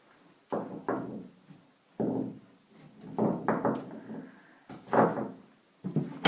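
Heavy steel lathe accessories, turret tool-holder fittings, being handled and set down in a box: a series of separate clunks and knocks about a second apart, the last with a short metallic ring.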